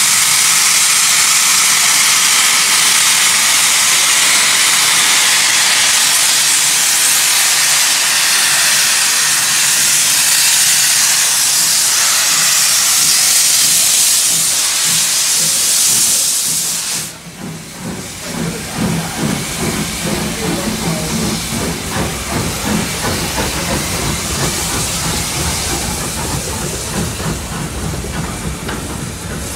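Loud steady hiss of steam from the open cylinder drain cocks of double-headed steam locomotives, led by saddle tank 51456, as they start away. About two-thirds through the hiss cuts off sharply, leaving the pulsing chuff and rumble of the moving engines and coaches.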